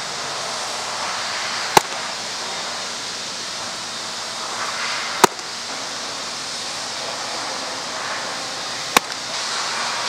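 A baseball smacking into a catcher's mitt three times, each catch a sharp pop, roughly three and a half seconds apart, as pitched change-ups are caught, over a steady hiss.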